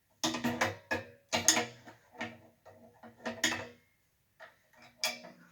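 A series of sharp metal clanks and rattles, some with a brief ring: hand tools and metal fittings knocking against each other. There are clusters in the first two seconds and around three and a half seconds in, and another single clank about five seconds in.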